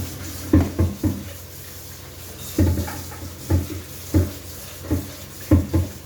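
A series of about ten short, dull knocks at irregular intervals, several in quick pairs, over a steady background hiss.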